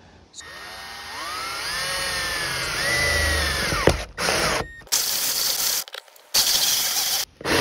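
Cordless drill driving a hole saw through the van's sheet-metal roof to cut a 1-inch hole. The motor whine rises as it speeds up, then the saw rasps through the metal in several short runs that stop abruptly.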